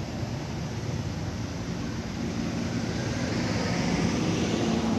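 Steady outdoor background noise with a low hum that grows louder over the last few seconds, then cuts off suddenly.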